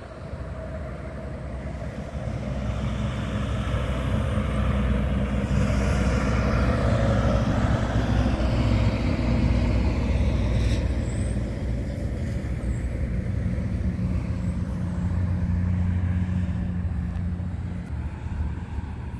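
Road traffic: a tractor-trailer passing on the road with a steady low engine and tyre rumble that swells to its loudest around the middle and then slowly fades.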